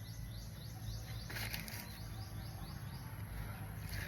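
Outdoor ambience: a rapid run of short, rising high chirps, about four a second, that fades after the first second, over a steady low wind rumble. Two brief rustling bursts come about a second in and near the end.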